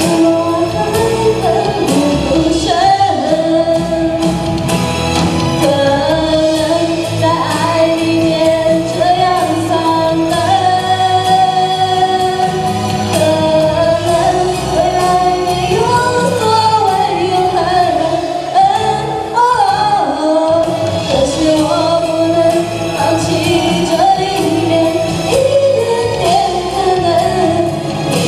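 A woman singing a pop song through a handheld microphone over instrumental accompaniment, her voice gliding between and holding notes.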